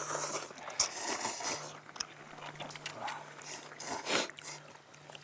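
People slurping and chewing ramyeon noodles: a string of short noisy slurps, the loudest about four seconds in, over a faint steady low hum.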